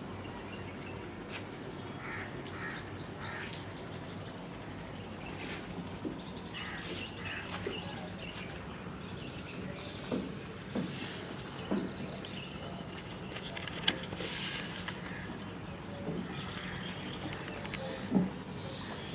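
Electric motor of a toka (fodder chaff cutter) running with a steady low hum, while birds chirp over it. A few sharp knocks come in the second half, the loudest about two-thirds of the way through and near the end.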